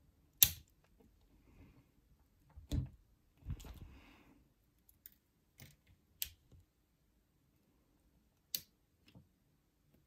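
Platinum Tools 100061C ratcheting crimp tool with the EX die, crimping an ezEX-RJ45 connector: a sharp snap about half a second in as the die closes and trims the pass-through conductors flush. A few softer clicks and a brief rustle of handling follow.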